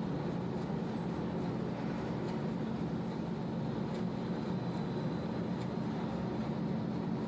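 1L532 vertical turning lathe running steadily while machining a part: a constant low machine hum with faint, regular ticking.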